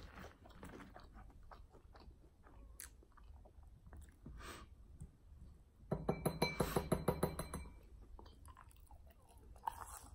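A person chewing and biting fried chicken wings with small scattered crunches and mouth clicks, and a louder run of rapid, even pulses lasting under two seconds about six seconds in.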